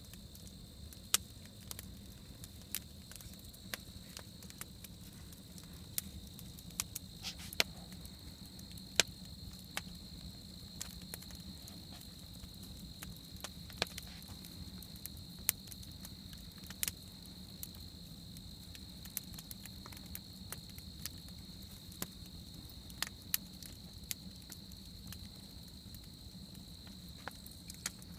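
Wood campfire crackling, with irregular sharp pops and snaps, a few much louder than the rest. Behind it is a steady high-pitched trill of crickets.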